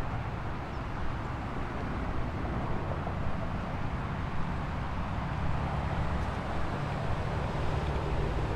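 Steady outdoor urban background noise dominated by a low rumble, with no distinct events.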